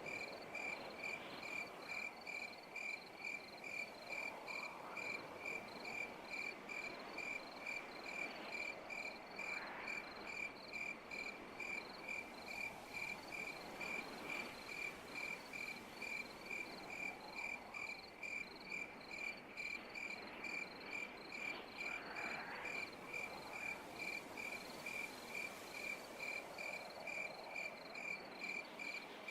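An insect, likely a cricket, chirping in an even rhythm, a little over two chirps a second, over a faint background hum.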